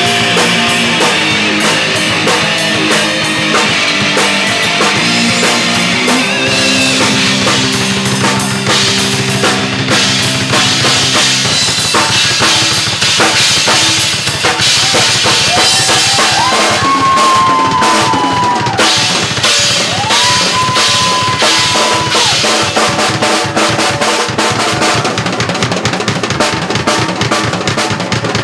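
Live rock band playing an instrumental passage with no vocals: guitars and bass hold chords over the drums for about the first twelve seconds, then the drum kit, with bass drum and snare, carries the rhythm, with a couple of long, bending high guitar notes in the middle.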